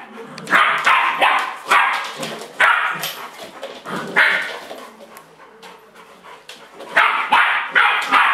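Bouvier des Flandres puppy barking in a string of sharp barks, then a pause of about two seconds, then a quick run of barks near the end.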